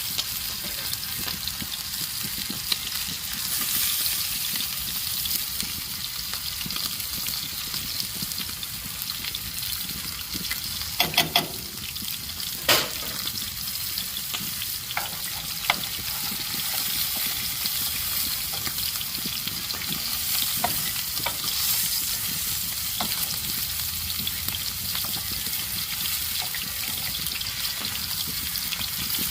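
Food frying in a pan over a bonfire, a steady sizzle, with a few sharp knocks about eleven and thirteen seconds in.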